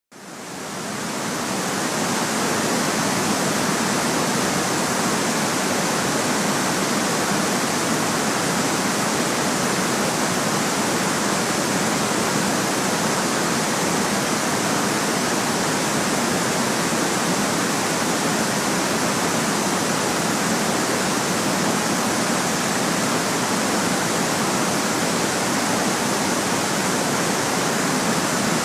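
Steady white-noise hiss, fading in over the first two seconds and then holding even, with no changes or events.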